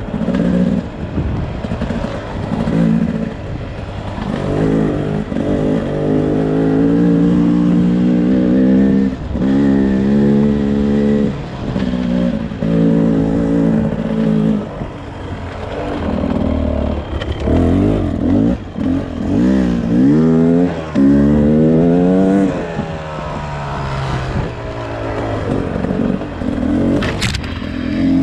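2022 Beta RR 300 Racing's single-cylinder two-stroke engine under way, the throttle opened and closed over and over so the pitch climbs and drops in repeated sweeps, with some stretches held steady. A few sharp clicks come near the end.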